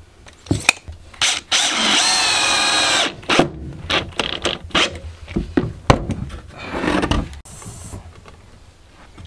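Cordless drill running steadily for about a second and a half, its bit boring into a wooden board. Then a series of sharp knocks and clatter as boards are handled.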